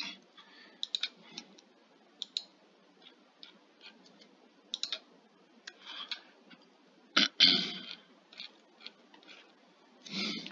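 Computer mouse clicks and keyboard taps: short, irregular clicks, with a louder, longer noise a little past seven seconds in.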